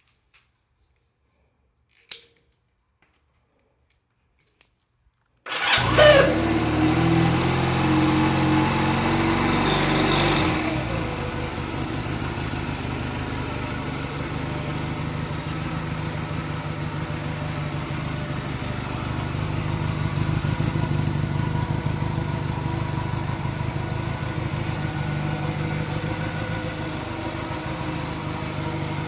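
A click about two seconds in, then the 250T's electric starter cranks with a brief whining, scraping noise, the abnormal starter noise this start is meant to show, and the engine catches. It runs fast and loud for about five seconds, then settles to a steady idle.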